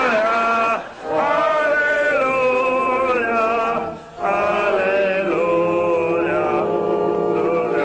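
A choir singing in long held notes, chant-like, breaking off briefly about a second in and again about four seconds in.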